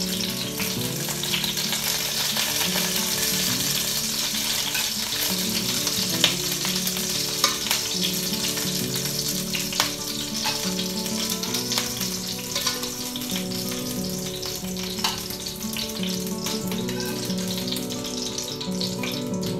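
Onion halves sizzling in hot olive oil in an enameled cast-iron Dutch oven as they sear, with a few sharp clicks of metal tongs against the pot as the onions are turned and lifted out.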